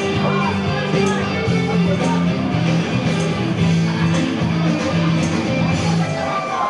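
Music with guitar, steady and loud, with a faint beat about once a second.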